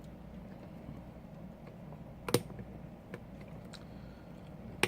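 A few sharp clicks and taps of small tools and phone parts being handled during iPhone disassembly, the loudest about two seconds in and another near the end, over a faint steady hum.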